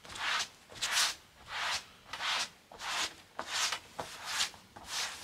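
A cloth rubbed back and forth over a damp sewn upholstery seat panel in even strokes, about one and a half a second, wiping chalk marks off it.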